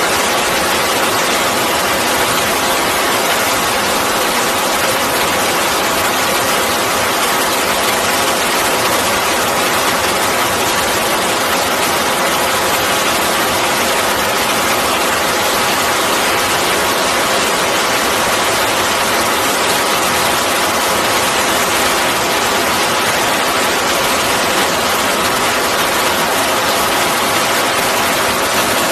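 Rocket engine firing on a test stand: a loud, steady rushing noise of the exhaust plume, holding an even level without a break.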